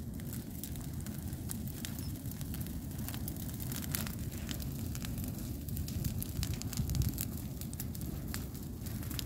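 Dry grass and brush burning, crackling with many small snaps over a low steady rumble.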